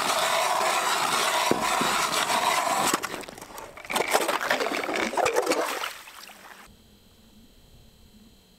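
Hand-cranked ice auger boring through lake ice: a steady grinding scrape as the blades shave the ice, breaking off about three seconds in, starting again, and stopping about six seconds in.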